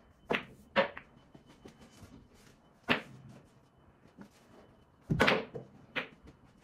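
Pool balls clacking on a pool table: sharp, separate knocks of the cue striking the cue ball and balls hitting each other, about five in all, with a longer, heavier thud about five seconds in.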